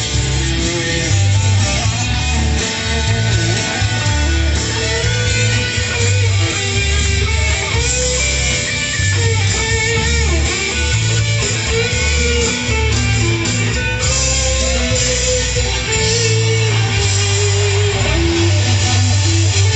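Live band playing an instrumental guitar passage without vocals: electric guitar picking a melody over a strong bass line.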